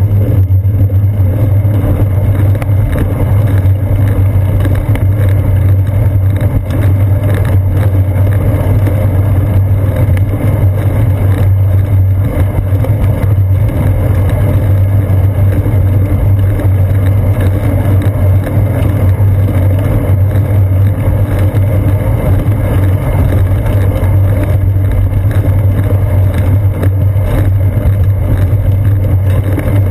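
Steady, loud low rumble of wind and road vibration picked up by a seat-post-mounted GoPro Hero 2 as the bicycle rolls along a paved path.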